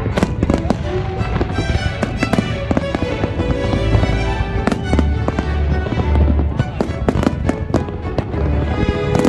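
Aerial fireworks bursting in rapid succession, a dense run of sharp bangs, over steady music.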